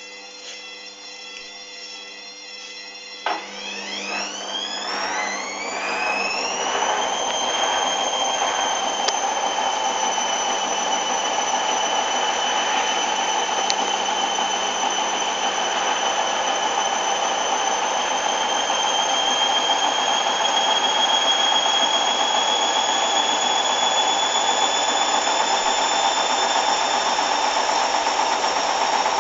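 Hoover Dynamic washing machine's drum motor starting a spin. A quieter steady hum, then a click about three seconds in and a whine that rises quickly and levels off, climbing slowly again in the last third as the drum gathers speed.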